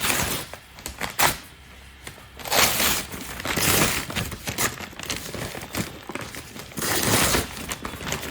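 Delivery packaging being opened: crinkling and tearing in several bursts, with a sharp snap about a second in.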